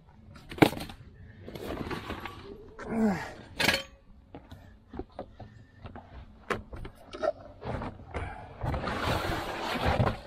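Plastic interior trim and carpet being handled and pulled out of the rear of an HHR panel van: scattered knocks and clicks of loose plastic pieces, with rustling and dragging of the carpet near the end.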